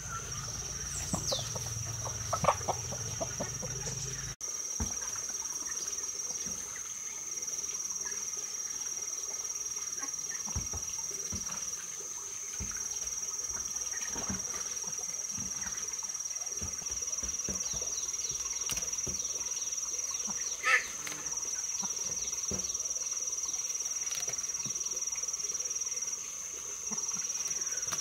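Hens clucking now and then, one louder call about two-thirds of the way through, over a steady high-pitched insect drone, with soft clicks and rustles of eggs being gathered from straw nests into a bamboo basket.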